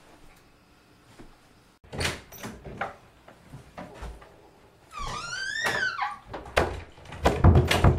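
An interior wooden door opening with latch clicks and knocks, then a rising hinge squeak. The door is pushed shut with heavy thuds near the end.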